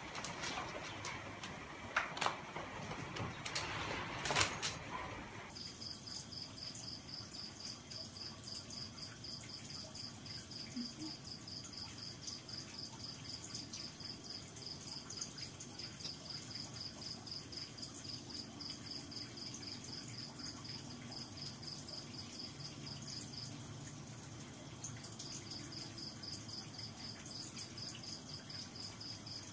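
A cricket chirping steadily, high and evenly spaced at about four chirps a second, with a short break late on. In the first few seconds, before it starts, there are a few sharp knocks and rustles.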